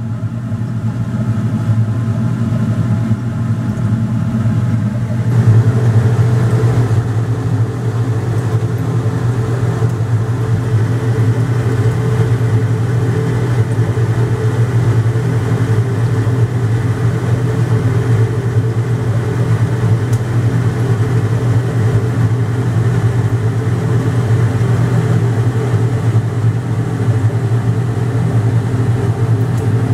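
Steady low mechanical drone with a strong hum, growing louder about five seconds in and then holding steady.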